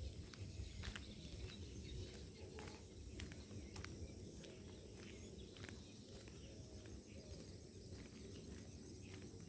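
Quiet rural outdoor ambience: a steady low rumble with scattered light clicks and a faint steady high hiss.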